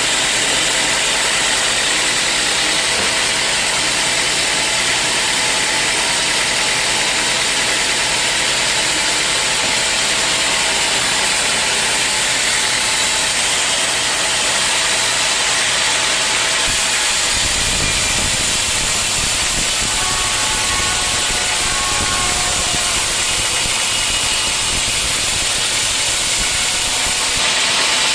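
Sawmill machinery running with a steady, loud, hissing noise. About seventeen seconds in, a low rumble joins it and the sound changes, then shifts again shortly before the end.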